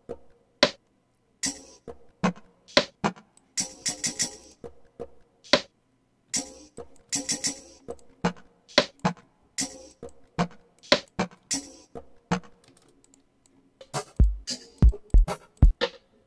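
Programmed amapiano percussion loop playing back in FL Studio: sharp, dry hand-percussion and shaker hits that stop and restart a few times. Near the end a deep kick drum joins the percussion.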